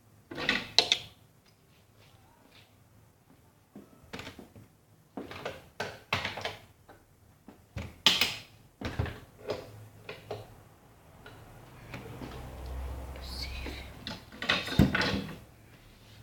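Irregular knocks, clicks and rattles from things being handled at close range, such as doors and latches, with a low hum rising for a couple of seconds after the middle.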